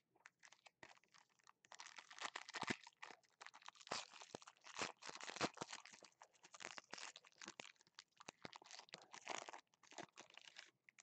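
Foil football-card pack being torn open and crinkled by hand: a dense run of crackling and tearing starting about a second and a half in and stopping just before the end.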